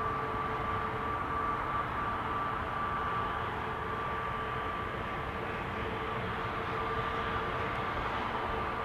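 Airbus A320neo's CFM LEAP-1A turbofan engines running at low taxi thrust: a steady rushing hum with two constant whine tones, one higher and one lower.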